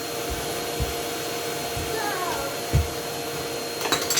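Henry canister vacuum cleaner running with a steady motor hum and rush of air. A few dull knocks come over it, the loudest about three seconds in.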